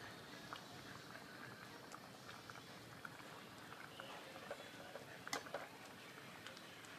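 Faint clinks and taps of a metal ladle against a stainless steel pot as soup is stirred, with a few sharper knocks a little after five seconds over a low steady hiss.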